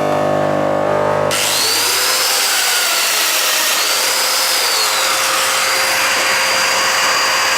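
An electric power tool's motor running steadily, a loud hissing rush with a faint whine. About a second in, a steadier hum with a pitch cuts off abruptly and the hiss takes over.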